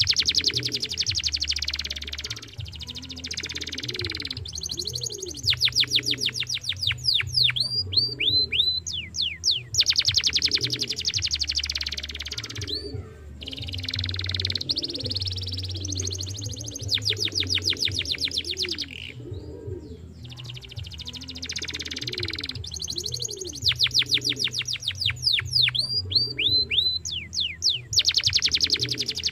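Young canary singing: long phrases of very fast trills and rolls mixed with quick downward-sweeping chirps, broken by short pauses.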